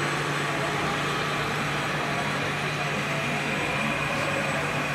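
Radio-controlled scale model trucks and a model tractor running, giving a steady low vehicle hum with no change in level.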